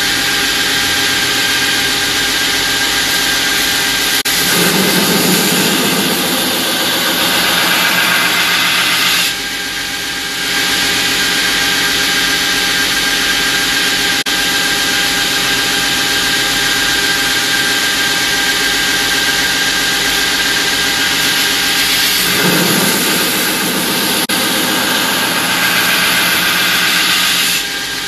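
Knife belt grinder running with a steel blade held in a jig against the belt: a steady motor whine under a grinding hiss that swells during passes. The grinding eases off briefly about nine seconds in and again near the end.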